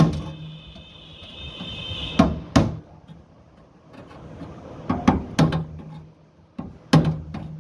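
Sharp metal knocks of a hammer striking a screwdriver used as a chisel against the rusted sheet-metal body of a window AC, about eight blows at uneven intervals, some in quick pairs. The first blow is followed by a high ringing tone for about two seconds. The blows knock down the body where rust has made it swell up into the fan blade's path.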